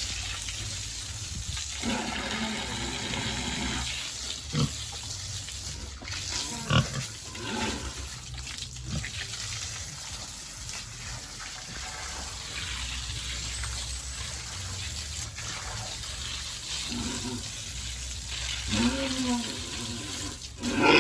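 Domestic pigs grunting and squealing in a pen over steady running water, with a few sharp knocks around the middle.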